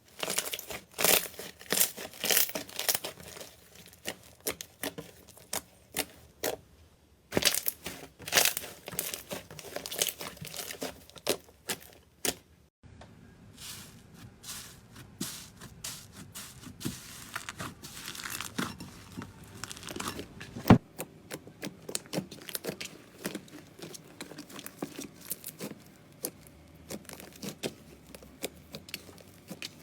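Slime being worked by hand: quick, irregular sticky crackles and pops. About 13 seconds in it changes abruptly to finer, denser crackling.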